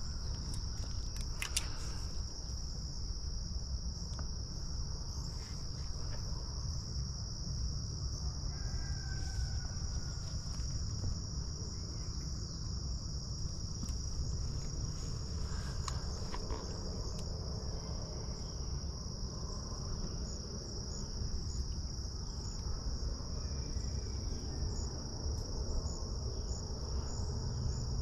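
Steady, high-pitched chorus of insects singing without a break, with a low rumble underneath and a few soft handling clicks.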